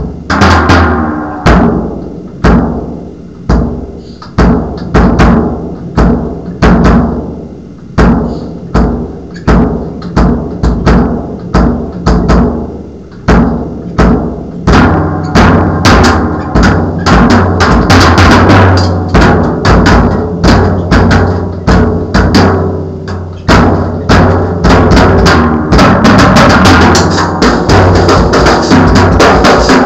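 Drum kit played hard and loud: heavy single hits with ringing decays at first, turning into dense, fast drumming from about halfway through.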